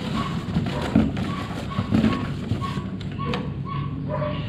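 Hands rummaging in a cardboard box of penalty cards, with a few soft knocks, over a run of short high beeps repeating about twice a second.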